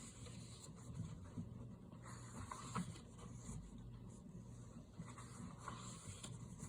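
Faint rustling of paper as coloring-book pages are turned and handled, with a few soft taps.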